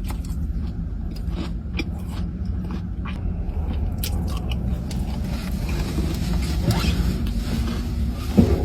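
A person chewing and eating a brownie cookie, with scattered small clicks of mouth and handling sounds, over a steady low hum.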